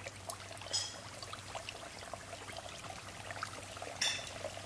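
Hot oil sizzling and crackling in a deep fryer as raw mathri dough rounds are dropped into it, a steady patter of tiny pops. Two brief louder sizzles, about a second in and near the end, as pieces hit the oil.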